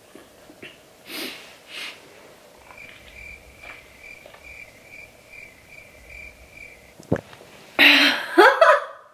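A woman breathing hard through her mouth and nose against the burn of very hot sauce: two short sniffs or puffs early on, then near the end a loud, breathy, partly voiced exhale lasting about a second. In the middle a faint high chirp pulses about two to three times a second for around four seconds.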